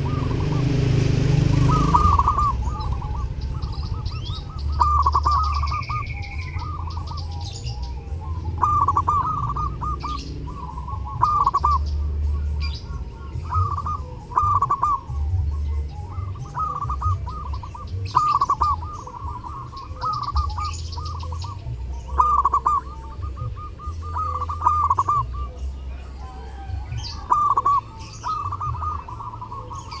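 Zebra dove (perkutut) singing: phrases of quick staccato coo notes repeat every second or two, with faint higher chirps and trills of small birds behind them. A brief rush of noise comes at the start.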